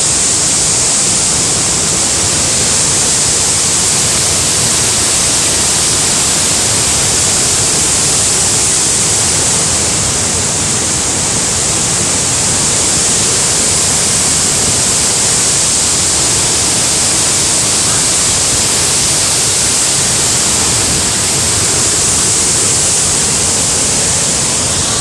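Loud, steady rush of floodwater, an even hiss heaviest in the high range that does not change.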